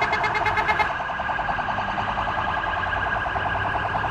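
An electronic siren sounding a loud, rapid pulsing warble without a break, over low traffic rumble.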